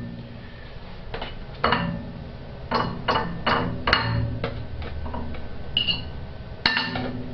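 A fork clinking and knocking against dishes: about ten irregular, sharp clinks, some ringing briefly.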